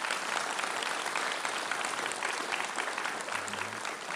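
Audience applauding: a steady, even patter of many hands clapping that eases off near the end.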